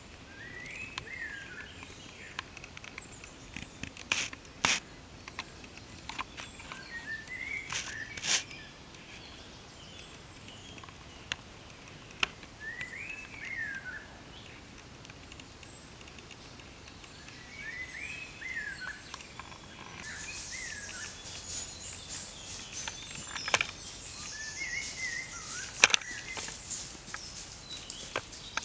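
Woodland birdsong: a songbird repeats a short, quick warbling phrase every few seconds, over a light outdoor hiss, with a few sharp snaps or clicks.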